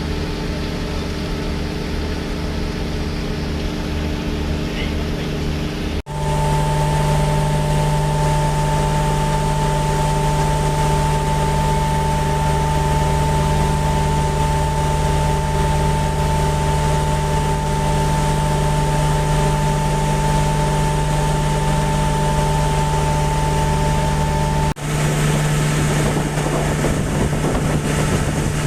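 Boat engine running steadily, a constant drone with a pronounced hum. The sound changes abruptly twice, about six seconds in and near the end, as between separate recordings of the same running engine.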